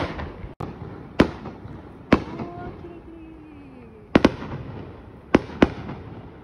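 Aerial fireworks shells bursting: about seven sharp bangs across six seconds, some in quick pairs.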